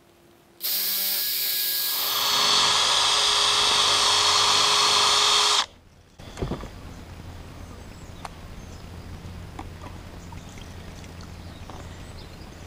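Cordless drill running as it enlarges the peg hole in a rubber airbag end pad: a short run, then a longer, louder run of about three and a half seconds that stops abruptly. A knock follows, then faint clicks of handling.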